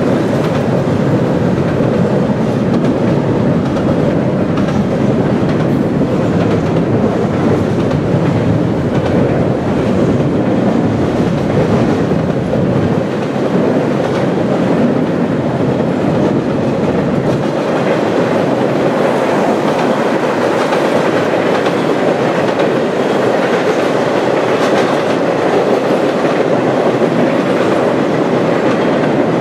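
Freight cars of a double-stack container train rolling across a steel trestle bridge: a loud, steady noise of wheels on rail and cars rattling over the steel structure.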